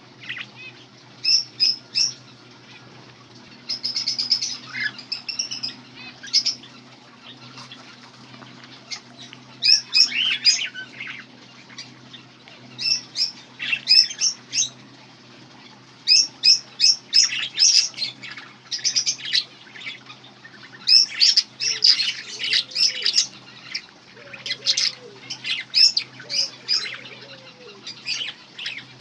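Small birds chirping, with clusters of short, high-pitched calls coming every second or two, over a steady low hum.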